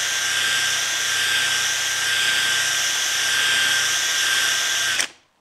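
Cordless drill spinning a white nylon rotary brush against a waxed ski base, a steady whir with a high whine, brushing the wax film down. It stops abruptly about five seconds in.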